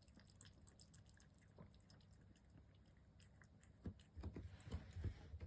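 Calico cat lapping water, faint small wet clicks, with a few low thumps about four seconds in.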